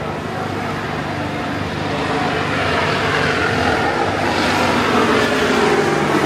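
A motor vehicle's engine running, growing louder from about two seconds in.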